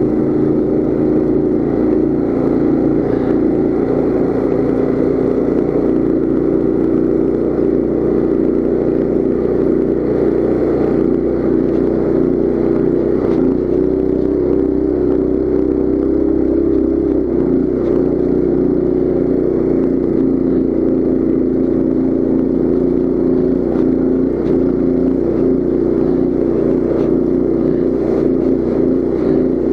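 Coleman CT200U mini bike's single-cylinder four-stroke engine running at a steady speed as the bike is ridden along.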